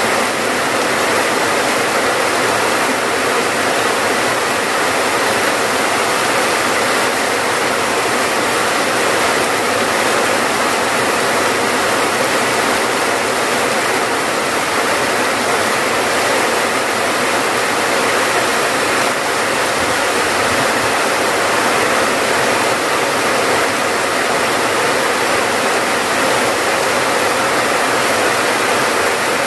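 Steady, heavy rainfall: a dense, even hiss of rain.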